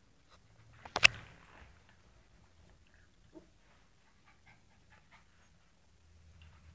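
Siberian husky puppy making one short, sharp sound about a second in, followed by a few faint small noises.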